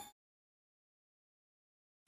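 Complete silence: a gap between two stretches of electronic background music, the first just ending as the silence begins.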